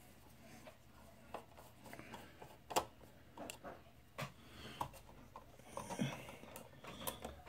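A small screwdriver turning out a screw on a projector's lamp module, with faint, irregular clicks and scrapes.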